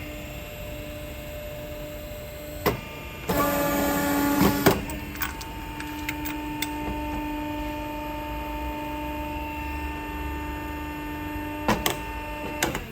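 A motor-driven machine hums steadily at one pitch, with a few sharp clicks. A loud rushing noise lasts about a second and a half, starting about three seconds in, after which the hum runs on at a slightly lower pitch.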